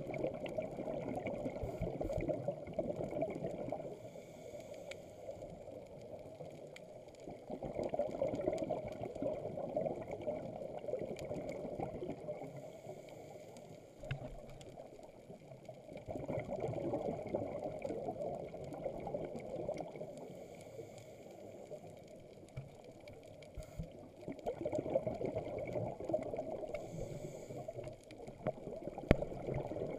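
Scuba diver breathing underwater through a regulator: bubbly exhalations lasting about four seconds come roughly every eight seconds, with quieter stretches between them.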